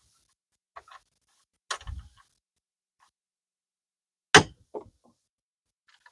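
Stainless steel latches on a wooden stake-body bed being snapped shut: a few short, sharp clicks with quiet between them, the loudest about four seconds in.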